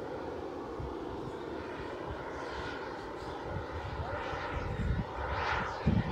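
Radio-controlled model airplane in flight: a steady motor drone that swells and bends in pitch a few times as the plane passes, with low rumbling growing near the end.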